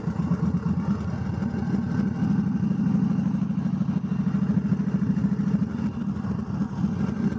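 Motorcycle engine running steadily at low speed, a rapid even pulsing drone.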